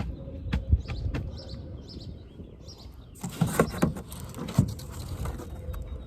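Birds chirping in the background. A few sharp knocks early on, then a louder stretch of clattering and rustling about three seconds in, like equipment being handled.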